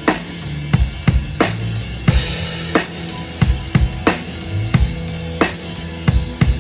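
A drum kit playing a steady beat during a band's sound check, with kick, snare and cymbals at about three hits a second and held bass notes underneath.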